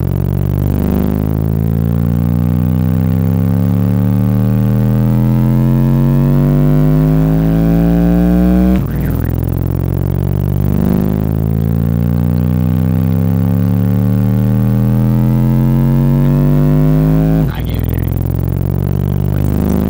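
Car stereo subwoofers playing a loud, bass-heavy electronic track: deep tones rise slowly in pitch for about nine seconds, then drop back low and start rising again, twice.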